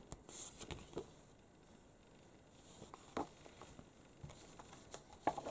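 Faint handling of comic books on a wooden table: a few soft paper rustles and light taps, with near quiet between them.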